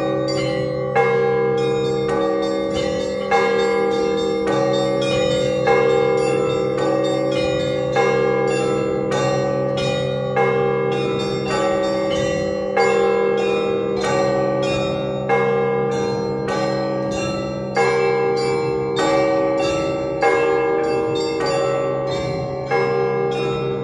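Russian Orthodox church bells rung together in a continuous peal: small bells struck rapidly over a steady lower bell, with a heavier stroke about every two and a half seconds.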